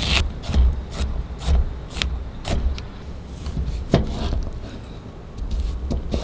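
Chef's knife chopping onion and then lime on a bamboo cutting board: short sharp knocks of the blade against the wood, about two a second at first and fewer later, with a sharper knock about four seconds in.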